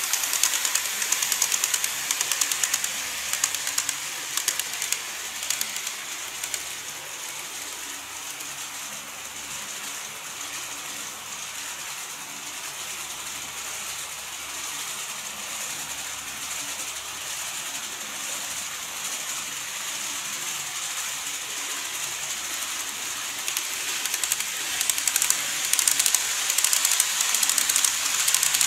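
N-gauge model trains (a 205 series and a 189 series) running on the track, a fine clicking rattle of small wheels and motors with a hiss. It is loud as one train passes close at the start, quieter in the middle, and louder again near the end as another train passes close.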